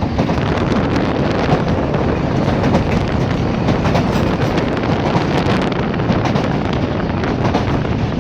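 Moving train's steady running rumble, with wind buffeting the microphone.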